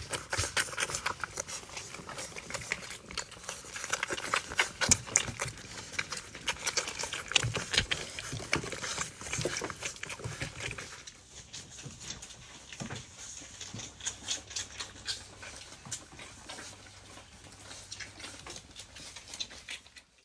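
Labrador puppies suckling at their mother's teats: a dense run of small smacking clicks that thins out and grows quieter about halfway through.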